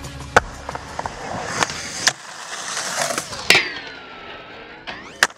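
Skateboard rolling on concrete with a few sharp clacks, then about three and a half seconds in the board slams onto a metal rail and slides along it with a grinding tone that falls and then rises in pitch. A sharp clack of the board landing comes just before the end.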